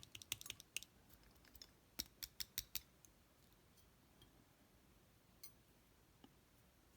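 Small sharp metal clicks of lock pins and tools being handled while a lock's pin stacks are pulled out, a quick cluster in the first three seconds, then two faint ticks.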